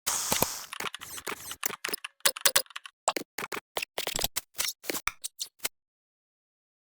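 A rapid, irregular run of sharp clicks and knocks, several a second, that stops abruptly near the end.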